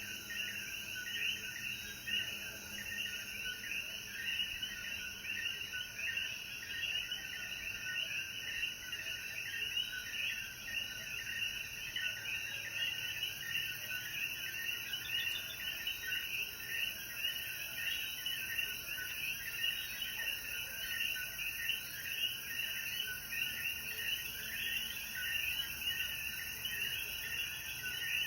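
Dense night chorus of many Puerto Rican coquí frogs calling at once: short rising calls overlapping without a break, with a faint steady high hiss above them.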